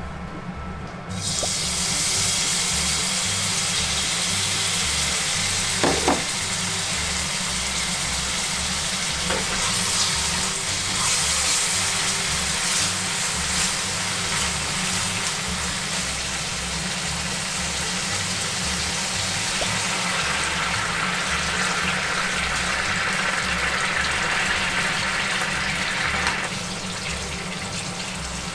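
Hot oil sizzling in a frying pan, starting suddenly about a second in as food or liquid goes into the pan, with a short knock of utensil on pan about six seconds in.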